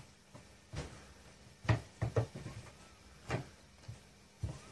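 Wooden rolling pin knocking on a round wooden pastry board as dough is rolled out thin: a handful of short, sharp knocks at irregular intervals, three close together about two seconds in.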